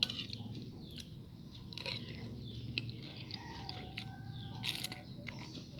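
A person biting and chewing crunchy food close to the microphone, with several sharp crunches among steady chewing.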